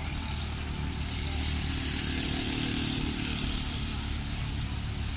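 Heavy diesel engine running steadily, with a high hiss that swells and fades midway.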